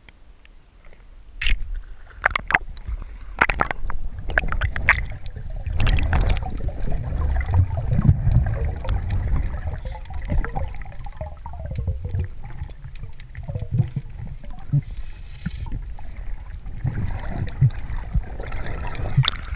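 Water gurgling and sloshing around an underwater camera as the spearfisher moves, a rough low rumble that starts about a second in. Sharp clicks and knocks come in a run during the first few seconds.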